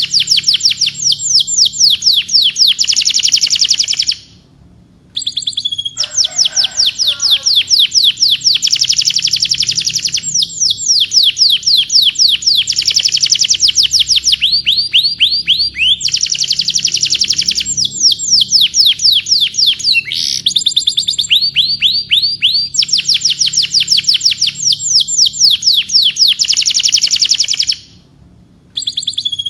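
Domestic canary singing: long, rapid trills of quickly repeated, falling high notes, broken by brief pauses about four seconds in and near the end. A lower warbling phrase comes in about six seconds in.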